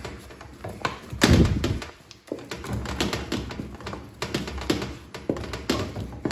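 Wooden cooking stick stirring and mashing stiff ugali in a metal pot, knocking against the pot in a quick run of taps and thuds, with one heavier thump about a second and a half in.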